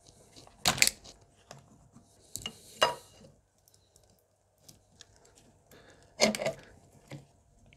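Sharp clicks and knocks of plastic fittings and a pry tool as a PCV (crankcase breather) hose is worked off its connector by hand, three louder strokes spread out among fainter handling noises.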